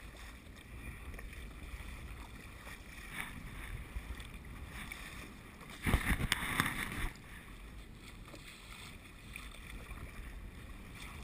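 Water washing against a paddled kayak's hull on a choppy sea. About six seconds in, a louder splash lasts about a second.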